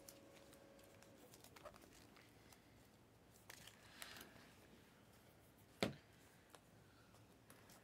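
Faint clicks and soft rustling of Panini Mosaic basketball cards being handled and leafed through in a stack, with one sharper click a little before six seconds in.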